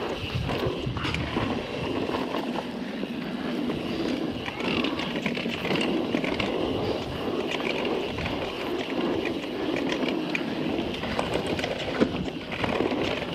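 Guerrilla Gravity MegaTrail mountain bike descending dirt singletrack at speed: a steady rush of tyres on dirt and air past the microphone, with the bike rattling and clicking over roots and bumps. A sharp knock comes near the end.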